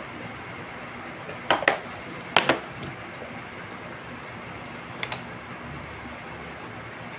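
Small hard clicks from handling chin-mount parts at a motorcycle helmet: a quick double click about a second and a half in, another pair about a second later, and a lighter pair about five seconds in, over a steady background hiss.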